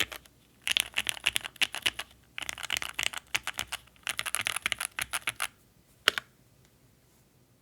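Keychron Q2 mechanical keyboard with Gateron Oil King linear switches and GMK Pulse keycaps being typed on: three quick bursts of keystrokes, then one louder single keystroke about six seconds in.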